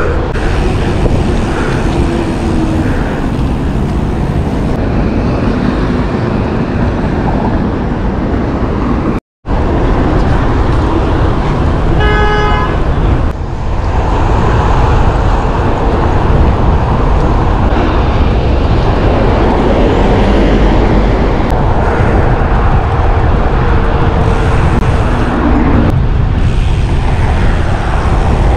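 Steady traffic and wind noise on a camera riding a road bicycle beside a busy street. A vehicle horn sounds briefly about twelve seconds in, and the sound cuts out for an instant a few seconds before that.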